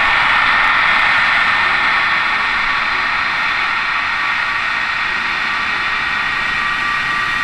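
Electric ducted fans of a large RC Boeing 777X model airliner running steadily: a high whine over a noisy hiss, easing slightly after about two seconds.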